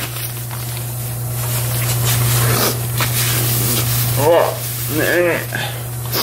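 A steady hissing noise with a low, constant hum underneath, swelling a little in the middle.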